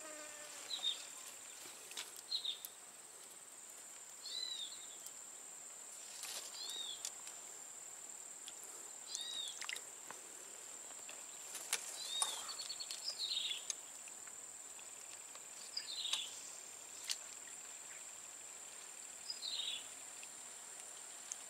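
A steady high-pitched insect drone, with a bird giving short chirps every two or three seconds and a few faint clicks.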